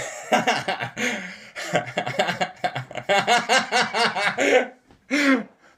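Hearty laughter in quick repeated bursts, fastest a little past the middle, with one last short laugh near the end.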